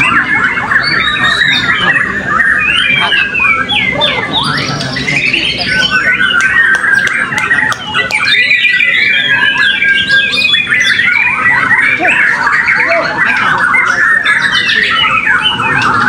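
Many caged white-rumped shamas singing at once: a dense, unbroken tangle of overlapping whistles, fast trills and rising and falling phrases.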